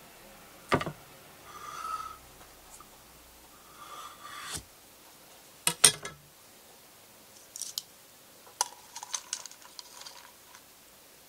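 Handling sounds on a ceramic plate: a knock and two short scrapes as the plate is moved, with two sharp knocks about six seconds in, then a run of light metallic clicks as stainless steel tongs pick chocolate petals from a ceramic dish.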